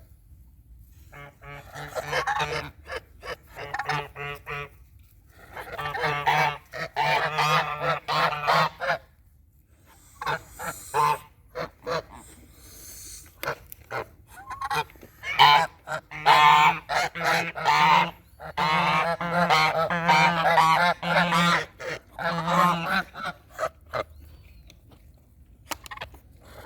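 Geese honking in repeated bursts of rapid calls, with short pauses between bouts.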